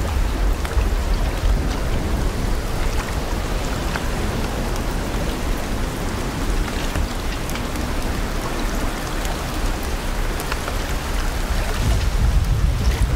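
Steady heavy rain falling, with the patter of many individual drops, over a deep low rumble that grows louder near the end.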